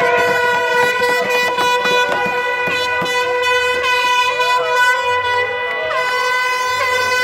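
A horn held in one long, unbroken blast on a single steady note, over a noisy, whistling crowd.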